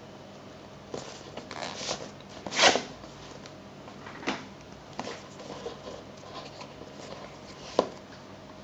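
Cardboard product box being handled and opened: the printed sleeve is slid off and the white inner box opened, giving scattered rustles and scrapes of card. The loudest scrape comes about two and a half seconds in, and a single sharp knock comes near the end.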